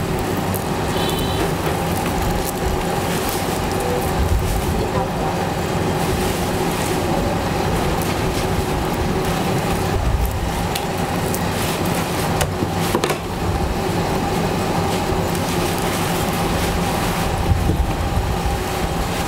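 A steady mechanical hum over a low rumble, with a few faint clicks.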